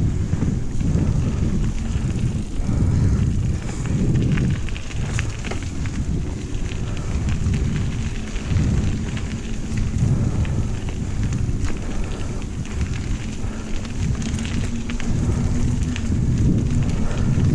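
Wind buffeting the microphone while riding an electric bike: a rough, uneven low rumble, with a faint steady hum beneath it.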